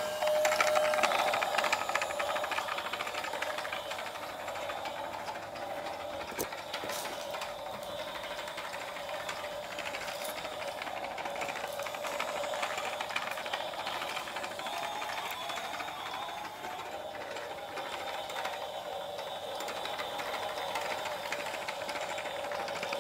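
Toy Christmas train running around its track with a steady mechanical rattle, louder in the first couple of seconds.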